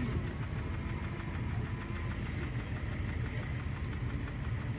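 Car engine running steadily with an even low rumble.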